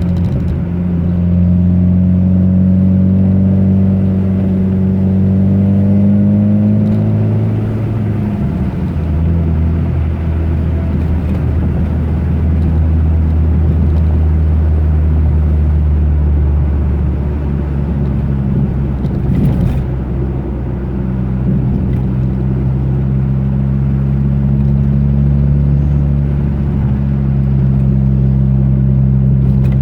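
Car engine running steadily while driving, with road noise; its note rises over the first several seconds, then drops about eight seconds in and holds. A single short knock comes near the middle.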